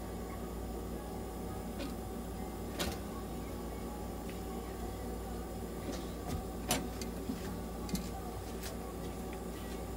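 Steady hum of a nebulizer running, delivering medicated mist into a cat's hospital cage, with a handful of sharp clicks, the loudest about two-thirds of the way through.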